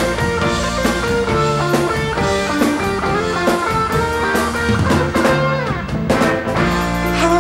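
Progressive rock band playing an instrumental passage: electric guitar lines over a drum kit.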